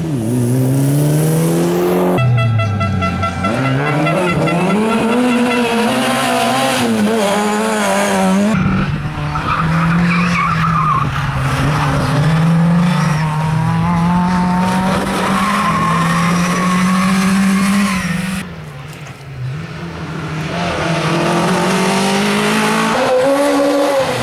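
Rally car engines revving hard, their pitch rising and falling through gear changes, with tyres squealing and skidding as several cars in turn are driven flat out through corners. The sound drops briefly about three quarters of the way through.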